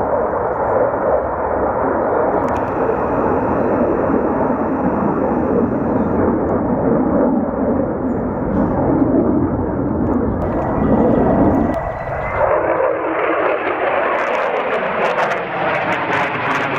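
Aircraft engine noise as a military plane passes. About twelve seconds in, the low rumble drops away and the pitch glides downward while a higher hiss grows.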